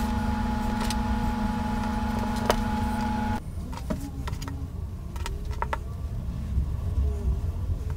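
A steady machine hum with several held tones cuts off abruptly about three and a half seconds in. It leaves a low rumble with a few light clicks.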